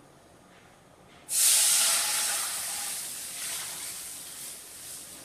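Milk poured into a hot kadai: a sudden loud hiss about a second in, then sizzling that slowly dies down.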